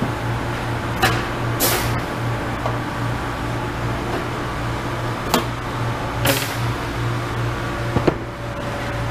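Aluminium blind rivets being pulled with a pneumatic rivet puller: a few sharp snaps as mandrels break, and two short hisses of air. Under them runs a steady low hum of shop machinery.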